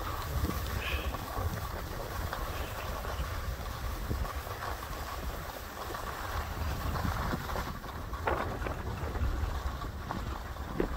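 Wind rumbling on the microphone while skiing downhill, with skis hissing and scraping over the snow, a couple of sharper scrapes late on.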